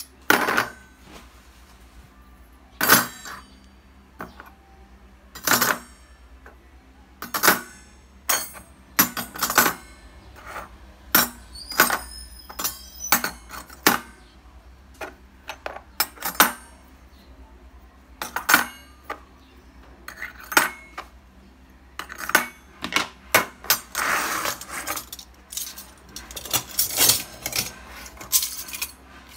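Stainless steel round cake mold rings clinking against each other as they are nested into one stack: irregular sharp metallic clinks, coming thicker near the end.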